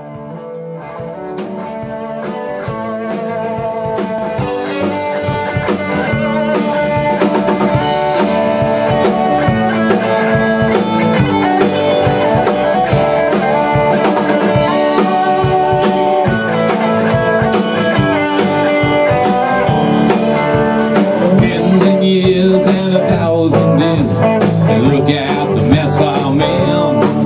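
A live rock band playing a blues-rock instrumental intro: electric guitars over a drum kit. It grows louder over the first several seconds, then runs at full level.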